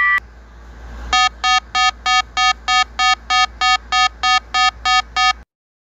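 Electronic beep repeating fast as a mock emergency alert alarm: about fourteen short beeps, each several tones at once, roughly three a second, stopping suddenly near the end. A held alarm tone cuts off just at the start.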